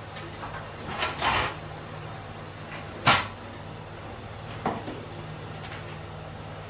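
Sewing machine table top being handled and set onto its metal stand. A scraping slide about a second in is followed by a sharp knock about three seconds in, the loudest sound, then a lighter knock a moment later, over a low steady hum.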